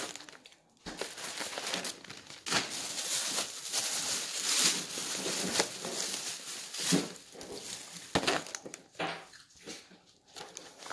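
Plastic packaging crinkling and rustling in repeated bouts as snacks are unpacked and sorted by hand, busiest through the middle.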